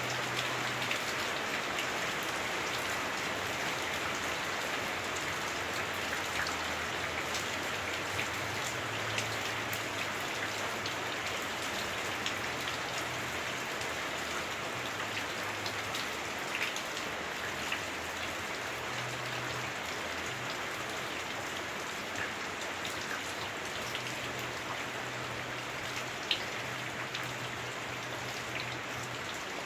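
Heavy rain drumming on a house roof, heard from inside: a steady hiss with scattered sharper drop ticks.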